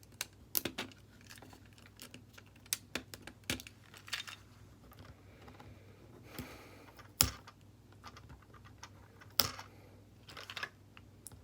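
Irregular sharp clicks and taps of tools and small parts against a smartphone's plastic and metal internals while it is being pried apart. The loudest click comes about seven seconds in and another about nine and a half seconds in, with a brief scrape around six and a half seconds.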